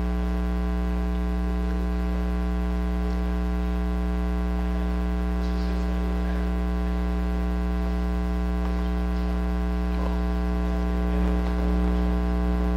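Steady electrical mains hum on the recording, a buzz made of many evenly spaced tones, with a few faint small rustles; it grows a little louder near the end.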